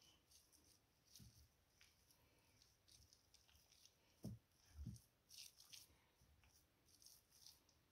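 Near silence, with a few faint soft squishes of hands rubbing an oily spice marinade into raw chicken fillets; the two clearest come about four and five seconds in.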